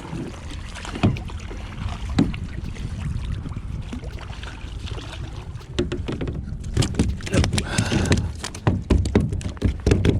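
Knocks, bumps and handling noise on a fishing kayak as a hooked largemouth bass is landed. The knocks are sparse at first and come thick and fast in the last few seconds.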